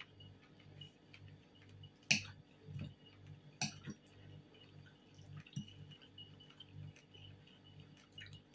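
A metal fork clinking and scraping against a ceramic plate while fish is picked apart, with two sharper clinks about two and three and a half seconds in and softer taps between.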